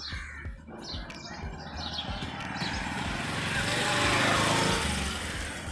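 A motor vehicle passing close by, its engine and road noise swelling to a peak about four seconds in and then fading away.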